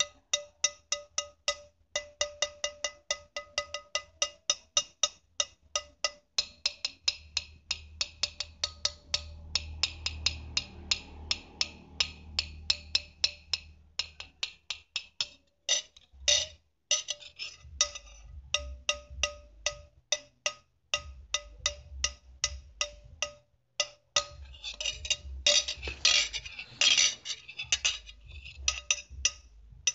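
Ceramic plates clinking in quick succession, several sharp strikes a second, each with a short ringing tone. Near the end the strikes crowd into a denser, brighter clatter.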